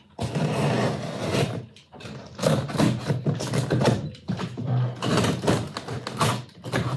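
Utility knife slicing through packing tape and cardboard on a large monitor box, with the cardboard scraping and rustling as it is handled, in a run of irregular short strokes.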